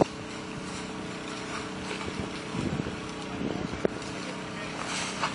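An engine idling steadily, with faint voices and a few short clicks over it.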